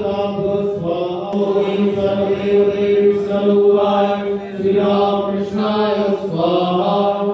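Sanskrit mantras chanted on a steady, held reciting note during a Hindu homa fire offering, as one long phrase that trails off near the end.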